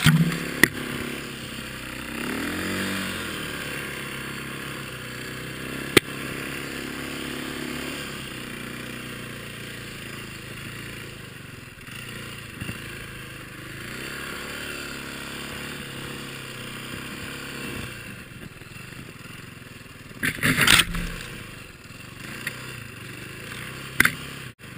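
Four-stroke single-cylinder dirt bike engine on a Timbersled snowbike, running under throttle with its pitch rising and falling as the rider works through the trees. Several sharp knocks cut through it, and a louder clattering scrape comes about twenty seconds in.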